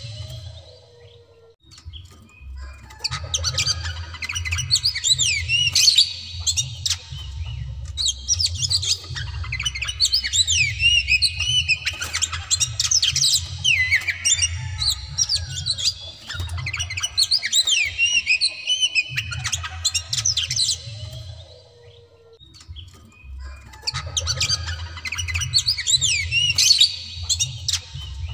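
Oriental magpie-robin (white-breasted kacer) in full, fired-up song: long bouts of rapid, varied whistles and harsh notes, with a short pause near the start and another about three-quarters of the way through.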